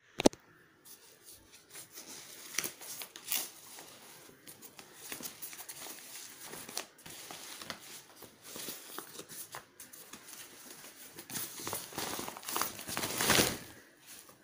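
Folded pop-up play tent being handled and unfolded: a sharp click at the start, then irregular rustling and crinkling of its synthetic fabric with small clicks. Near the end comes a louder rush of fabric as the tent springs open.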